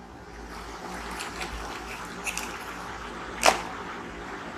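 Light handling noise as the alarm kit's wiring is picked up and shown: a soft rustle with a few faint clicks and one sharper click about three and a half seconds in.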